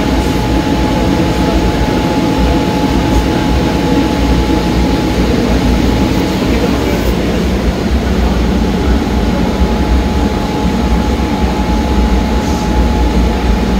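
Steady low rumble of a large store's background noise, with a faint steady whine held throughout.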